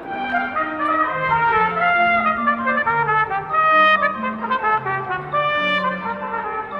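Trumpet playing a melody of short held notes, over a lower line of bass notes.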